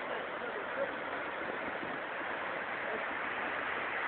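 Small waterfall on a mountain river, the water rushing steadily over rocks.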